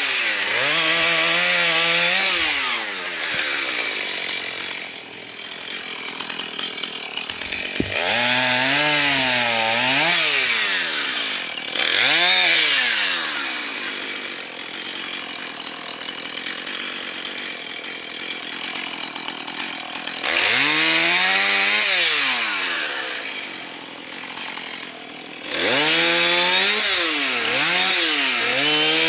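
Husqvarna chainsaw cutting up dead ash limbs: the engine goes to full throttle for a cut, with its pitch bending up and down as it works through the wood. Between cuts it drops back to a lower, quieter run, and this happens about four times.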